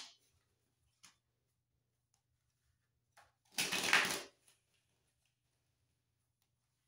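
A deck of tarot cards being shuffled. There is one short, dry rush of riffling cards, under a second long, about three and a half seconds in, with a few faint taps of cards being handled before it.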